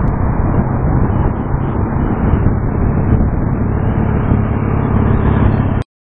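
Wind buffeting the microphone of a camera on a moving bicycle, over the sound of road traffic with car and motorcycle engines. It is loud and steady, then cuts off suddenly near the end.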